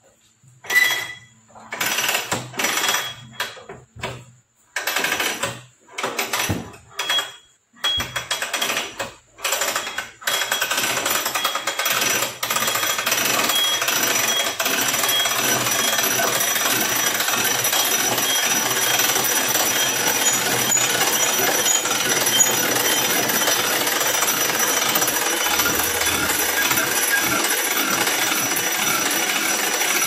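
Homemade hand-cranked pulley scissor lift being wound up under a refrigerator's weight. The crank mechanism makes short bursts of rapid rattling for the first ten seconds or so, then a continuous rapid rattle.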